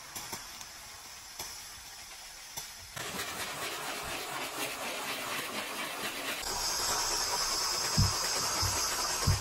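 Soft detailing brush scrubbing foamy cleaner over a steering wheel and then a textured dashboard, a light bristle swish that turns to denser, scratchier scrubbing about a third of the way in. About two-thirds in, a steady hiss joins, with a couple of low thumps near the end.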